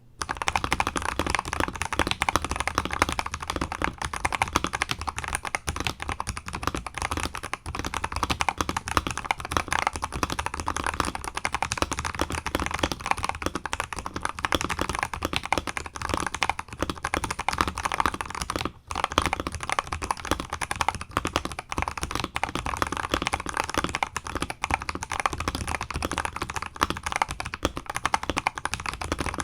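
Continuous fast typing on an Akko 5075S mechanical keyboard with Akko Sponge switches lubed with Krytox 205g0 and a polycarbonate plate: a dense, steady stream of key strokes, with a brief pause about nineteen seconds in.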